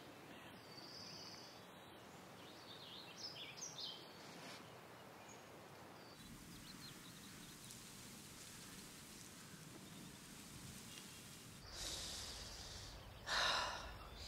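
Quiet outdoor ambience of a film soundtrack: a soft steady background hiss with faint high bird chirps in the first few seconds, and one brief louder burst of noise about 13 seconds in.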